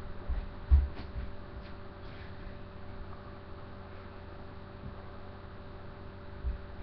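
A steady low hum, with a single dull thump about a second in and a few faint ticks.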